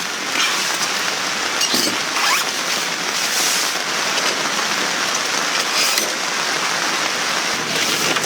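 Light rain falling steadily, a dense even patter with now and then a sharper drop or crackle.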